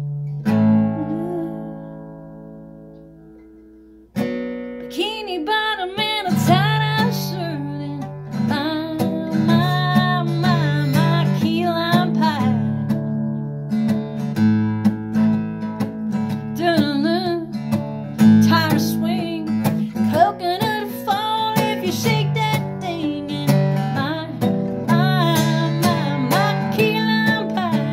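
Acoustic guitar strummed, with a woman singing along. A chord rings and fades over the first few seconds, then the strumming starts again, and the singing drops out for a moment about halfway through.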